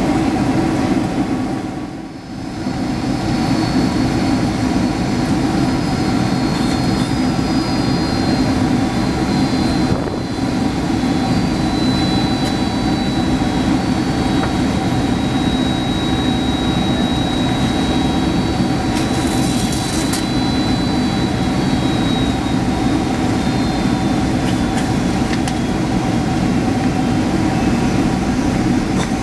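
Steady cabin noise of a Boeing 767 in flight, heard from a window seat by the wing: rushing air and the drone of its Rolls-Royce RB211 turbofan engines. A faint high-pitched whine runs through the middle of the stretch, and the sound dips briefly about two seconds in.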